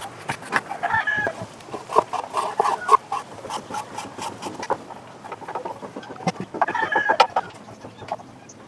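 Chickens clucking in short bursts, mixed with sharp clicks and taps.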